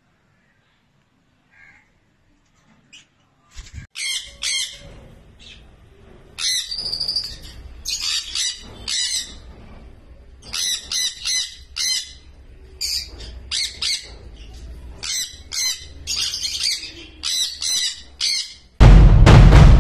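Sun conures screeching: loud, harsh, high calls in quick runs, starting about four seconds in after a near-silent start. Loud drum-heavy music cuts in about a second before the end.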